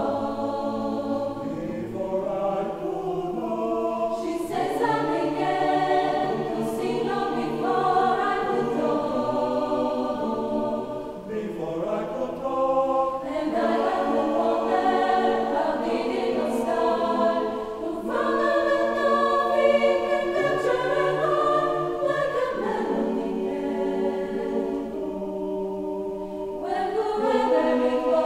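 Mixed choir of women's and men's voices singing in several parts, holding chords that change every second or two, with short breaks between phrases.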